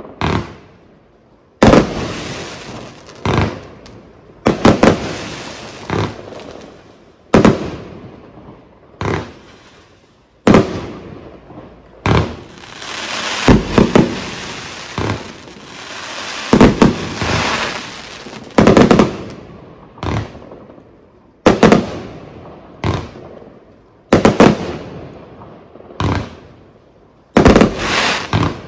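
I-Legal 'Proud Mary' 134-shot consumer fireworks cake firing: sharp bangs of bursting shots come roughly every one and a half seconds, some in quick pairs, and each one trails off before the next.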